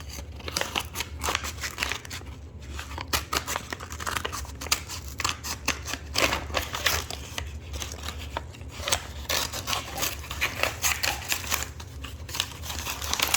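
Scissors snipping again and again, cutting open a toy's packaging: a run of sharp, irregular snips and clicks.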